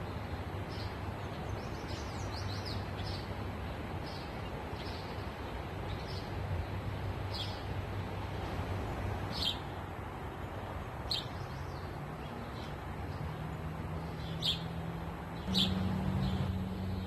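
Small songbirds chirping in short, separate notes every second or two over a steady rush of wind and outdoor ambience. A low steady hum comes in over the last few seconds.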